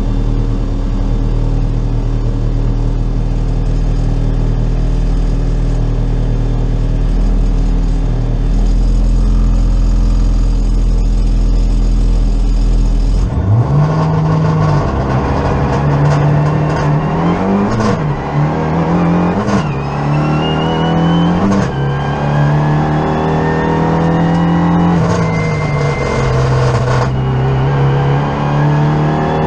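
Renault Mégane 3 RS hill-climb car's turbocharged four-cylinder, heard from inside the cabin, running at a steady pitch on the start line, then launching about thirteen seconds in. It revs up through several quick upshifts, the pitch climbing and dropping at each gear change, and keeps pulling hard up the road.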